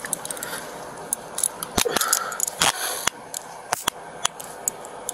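Scattered sharp metallic clicks and jingles from handling police gear, such as handcuffs and keys, with a short rustle about two seconds in.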